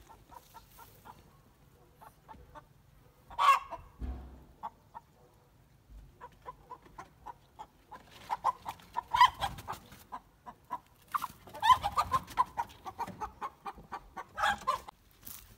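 Chickens clucking and squawking in alarm as they are grabbed from their coop: one loud squawk about three seconds in, then a fast run of clucks with several loud squawks through the second half.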